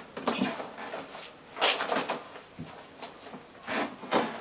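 Several short knocks and rustles of clothes and belongings being handled and put away into storage furniture during unpacking.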